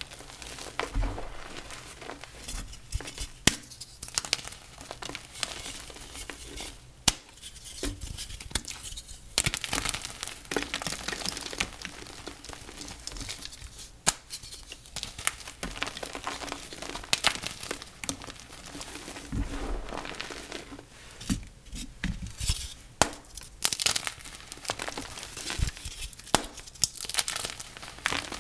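Dyed gym chalk being crushed and crumbled by hand: a continuous dry crunching and crackling with frequent sharp snaps.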